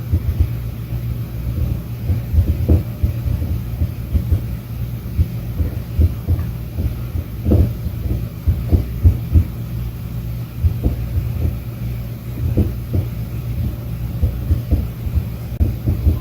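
Muffled, irregular low tapping and knocking coming through the building from the neighbouring apartment, several knocks a second and unevenly spaced, over a steady low hum. The neighbour says it is his cat working a slow feeder.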